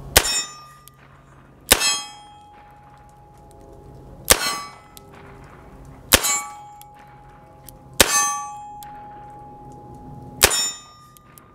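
Six shots from a Rossi RP63 revolver, fired singly at an unhurried pace. Each is followed by the ringing clang of a steel target being hit, fading over a second or two.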